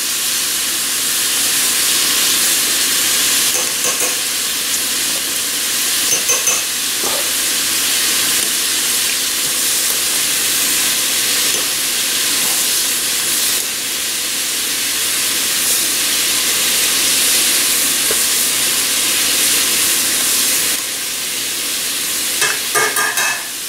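Pot of homemade chicken stock at a rolling boil, a steady bubbling hiss. Light clicks of metal tongs come about four and six seconds in, with a short clatter near the end.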